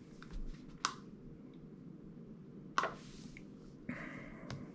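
Two sharp clicks about two seconds apart and a fainter one near the end, over low room tone: fingers pressing buttons.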